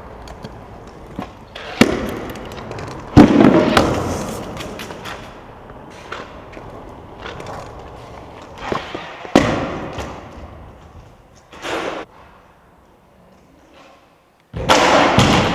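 Stunt scooter wheels rolling over a concrete floor, with several sharp clacks of the scooter landing and hitting the ground and a loud, harsh burst lasting about a second near the end.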